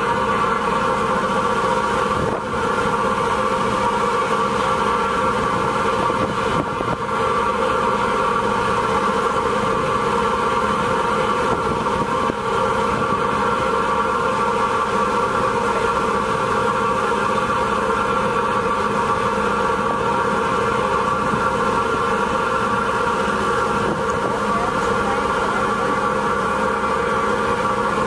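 Steady drone of a boat's engine heard from on board while under way, a constant hum of several tones.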